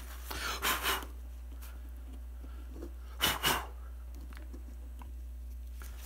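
Paper towel rubbing over a small LCD screen, wiping off dust, for under a second near the start. About three seconds in comes the loudest sound, a short double puff of breath.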